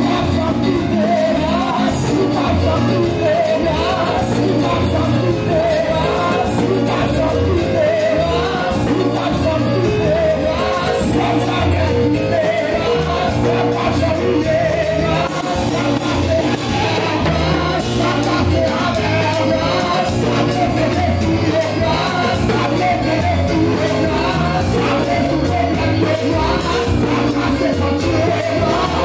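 Live Haitian Pentecostal praise music: a man singing lead through a microphone, with voices of the congregation joining in and shouting, over a band with a pulsing bass line and a steady percussion beat.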